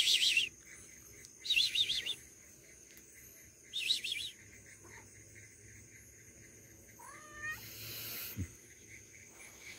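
Three short, high, warbling chirps about two seconds apart, then a short cat meow about seven seconds in.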